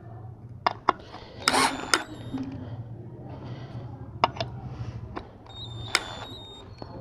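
Cheston 12-volt cordless drill-driver driving a screw into a block of hardwood: a low steady hum with several sharp clicks and knocks from the bit and the wood.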